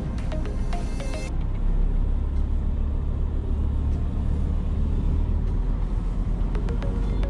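Background music cuts off about a second in, leaving the steady low rumble of a diesel truck engine running. The music comes back faintly near the end.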